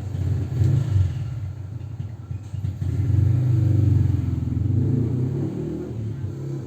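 A motor vehicle's engine rumbling close by, swelling about three seconds in and easing off near the end.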